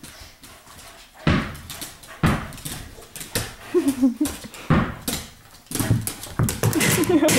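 A small dog whining in short, wavering cries during play. Sharp thuds on a hardwood floor sound about once a second.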